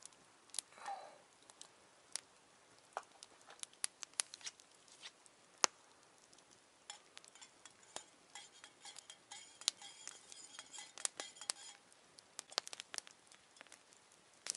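Wood campfire crackling with scattered sharp pops. For a few seconds past the middle, a spoon clinks quickly around inside a metal cup, and the cup rings.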